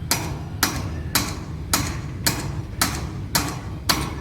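Hammer driving nails through tin roof sheets, eight even strikes at about two a second, each with a short ring.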